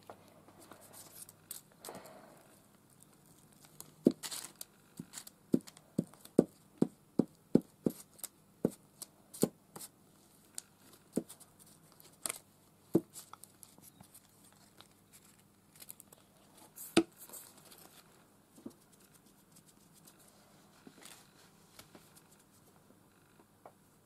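Glue stick being worked over thin paper bird cutouts, with paper rustling and crinkling as the pieces are handled. A run of sharp taps and clicks comes about one or two a second from about four seconds in, thinning out to a few scattered ones later.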